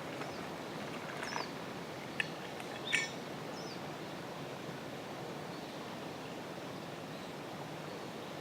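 Outdoor ambience: a steady background hiss with a few short bird chirps in the first few seconds. Two sharp clicks or knocks come about two and three seconds in.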